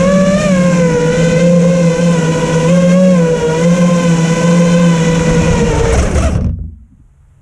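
Steele Apex 5-inch FPV freestyle quadcopter's motors and propellers whining steadily, the pitch rising and dipping slightly with throttle. The sound cuts off abruptly about six and a half seconds in.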